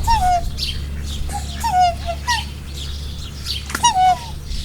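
Waterfowl calling: about half a dozen short calls, each dropping in pitch, over a low steady hum.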